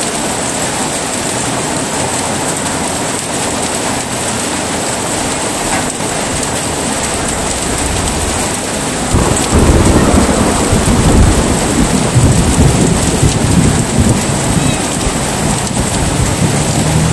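Steady heavy rain, joined about nine seconds in by a loud low roll of thunder that rumbles on.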